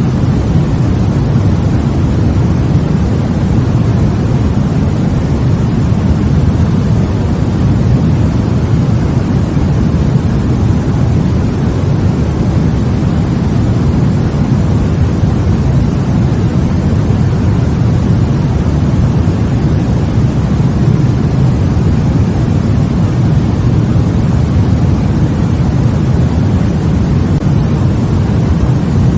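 Continuous white noise for sleep, a steady, even rushing hiss weighted toward the low end, with no changes or breaks.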